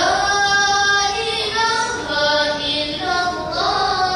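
A group of boys singing selawat (Islamic devotional song in praise of the Prophet) together into microphones, in long held notes that step from pitch to pitch.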